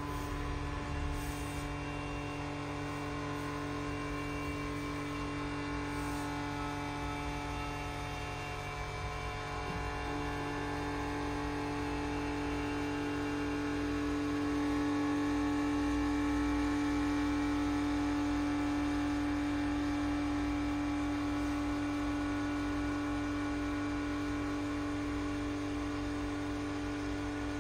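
The vacuum pump of a MakPack 35 cm single-jaw chamber vacuum packing machine running steadily through a vacuum cycle: a constant mechanical hum with a strong low tone, growing slightly louder midway.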